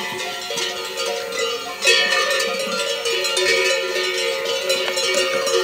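Many goat bells clanking and ringing together as a herd of goats moves about, growing louder about two seconds in.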